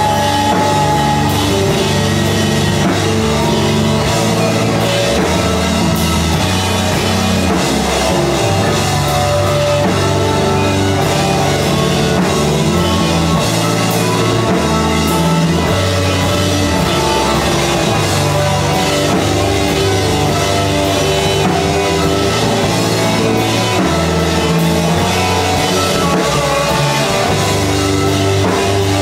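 A live math-rock band playing an instrumental passage: drum kit, guitar, bass and bowed violin together.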